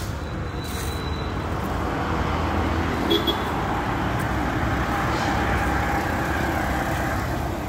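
Road traffic running past, a vehicle's noise building up over the first few seconds and easing off near the end.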